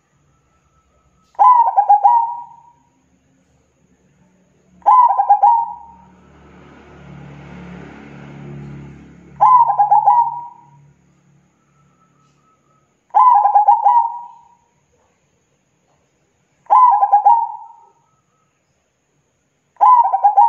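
Zebra dove (perkutut) cooing: six short trilled coos of rapid stuttering notes, one about every three to four seconds. A faint rushing noise swells and fades between the second and third coos.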